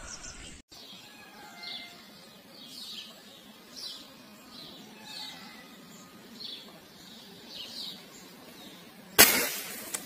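Small birds chirping, short high downward calls repeating every second or so. About nine seconds in comes a single sharp rifle shot, the loudest sound, fired at a dove seen in the scope.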